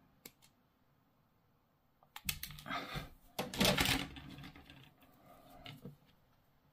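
Sprue cutters snipping a plastic miniature part off its sprue, with sharp clicks and rustles of the plastic frame being handled. The clicks come in a cluster from about two seconds in, loudest about halfway through, then die down to a few small clicks.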